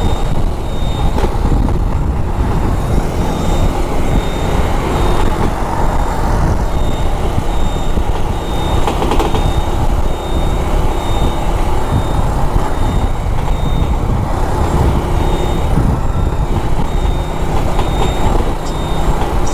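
Motorcycle riding through city traffic: a steady low rumble of engine and road noise, with a thin high-pitched beep repeating evenly about three times every two seconds.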